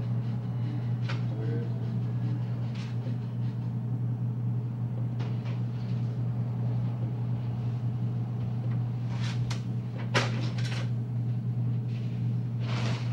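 A steady low hum under scattered light clicks and taps from cookie dough balls being shaped and set on a metal baking sheet, with one sharper knock about ten seconds in.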